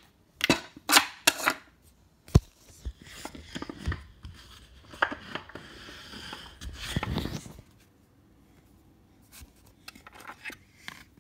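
Handling noise from a phone held close to the microphone: a run of sharp clicks and knocks with one hard knock about two seconds in, then a few seconds of rustling, then near quiet with a few faint ticks.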